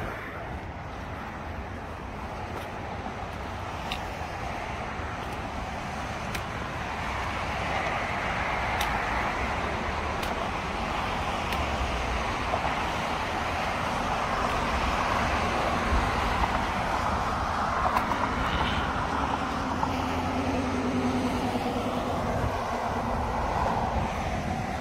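Steady road traffic noise, a continuous hiss of tyres and engines that swells and eases slightly as vehicles pass.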